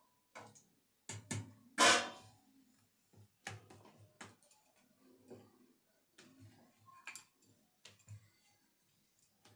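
Wooden rolling pin knocking and rolling on a marble countertop as bhatura dough is rolled out: irregular dull taps and clicks, with a louder clatter about two seconds in.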